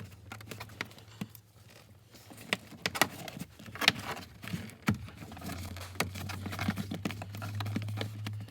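Plastic interior trim being handled and pressed back into its clips: irregular sharp clicks and knocks, several seconds apart. A low steady hum comes in about five seconds in.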